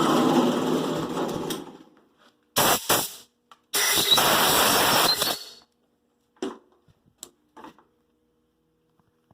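Die grinder with a carbide bit grinding into a broken screw extractor lodged in a snapped stud in an exhaust manifold. It runs steadily, then spins down about a second and a half in. Two short blips come near three seconds, then a longer run of about a second and a half winds down, followed by a few light clicks.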